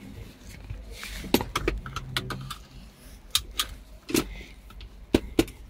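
Car seat belt being pulled out and drawn across the passenger seat, giving an irregular string of sharp clicks and rattles from the metal latch plate and buckle hardware over a low steady rumble.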